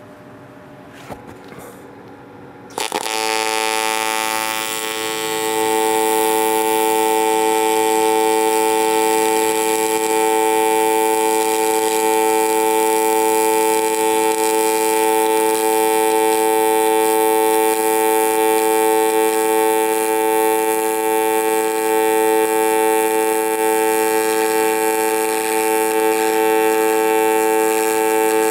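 AC TIG welding arc on aluminum plate from a Miller Dynasty 700, struck about three seconds in and then buzzing steadily with a hum-like tone. It is run at fairly low amperage, laying a cold bead.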